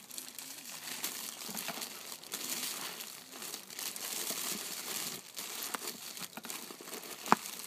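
Clear plastic flower sleeves around bunches of hydrangeas crinkling steadily as gloved hands press and arrange them in a cardboard box, with one sharp click near the end.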